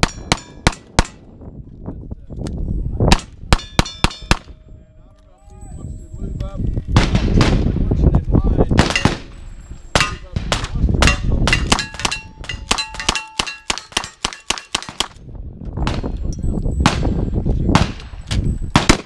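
Single-action revolver shots, then a lever-action rifle firing a rapid string of shots at steel plate targets, with the clang of the struck plates ringing after many of the shots.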